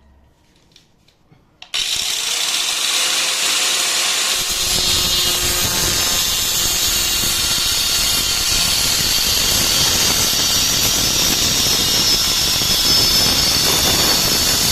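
Angle grinder fitted with a Bosch carbide multi wheel, switched on suddenly about two seconds in and running loud and steady while cutting laminate planks, the sound thickening lower down from about four seconds in.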